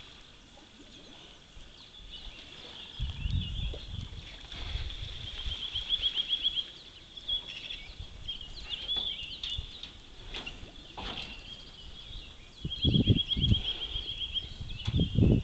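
Low thuds and knocks as a brown bear pushes against and paws at a bear-proof bin prototype, loudest about a third of the way in and twice near the end. Birds sing throughout, with two rapid trills.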